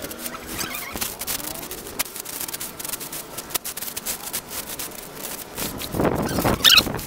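Cloth pads rubbing and scrubbing over glazed floor tiles, a dry scratchy sound with many small ticks, as dry white cement and grout powder is worked into freshly filled tile joints. It grows louder about six seconds in.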